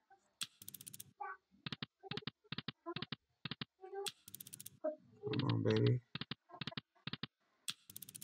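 Precious Egypt online slot game's sound effects: quick runs of sharp clicks and short electronic blips as the reels spin and stop in turn, repeated over several spins. A louder, fuller burst of game sound comes about five seconds in.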